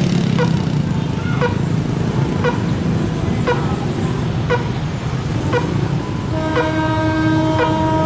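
Level-crossing warning bell dinging steadily about once a second over the low running of idling motorbike engines. About six seconds in, an approaching KRL electric commuter train sounds a long, steady horn.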